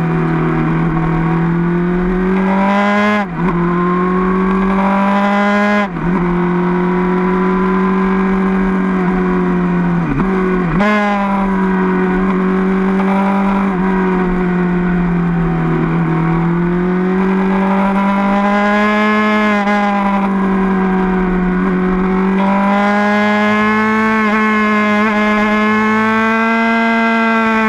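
Suzuki GSR750's inline-four engine running at steady high revs while riding, the note dipping briefly and picking up again three times in the first half and rising slightly toward the end.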